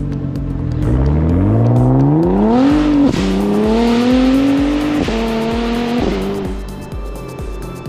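Tuned Nissan GT-R R35's twin-turbo V6 accelerating hard through the gears: the engine note climbs steeply, then drops sharply at three quick upshifts before fading away near the end. Background music with a steady beat runs underneath.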